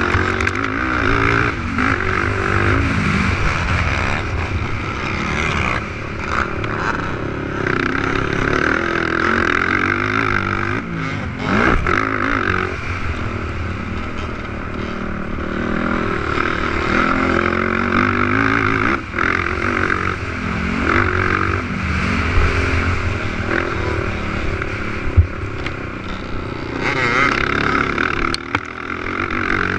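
450-class race quads' four-stroke engines revving hard, their pitch rising and falling as they accelerate and shift.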